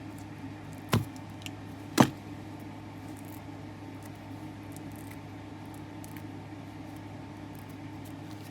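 Two sharp clicks about a second apart, the second the louder, from tools being handled on a workbench, over a steady low hum.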